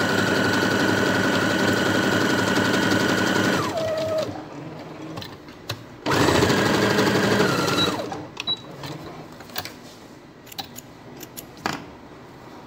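Domestic electric sewing machine running a straight stitch at a steady speed, winding down to a stop after nearly four seconds. It starts again for a second, shorter run about six seconds in. After that come only light clicks and fabric handling.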